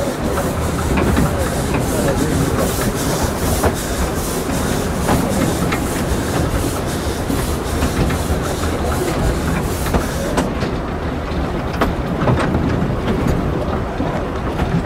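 Narrow-gauge steam train running, heard from a carriage window: steady rail clatter with sharp wheel clicks, and a fast, rhythmic hissing of the locomotive's exhaust that drops away about two-thirds through.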